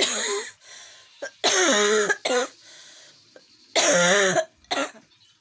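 A person sneezing over and over: about five short, loud bursts with a voiced, sliding pitch. The longest and loudest come about a second and a half in and again about four seconds in.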